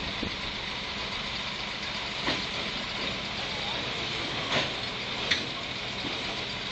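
Engine of an old crawler piling crane running steadily as the machine is loaded onto a low-loader trailer. Sharp metallic clanks come about two, four and a half and five seconds in.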